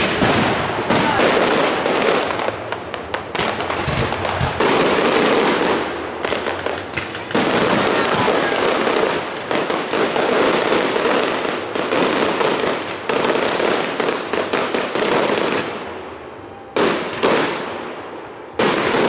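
Aerial fireworks display: shell after shell bursting with sudden loud bangs followed by dense crackling, with hardly a pause. There is a brief lull about three-quarters of the way through before more bangs resume.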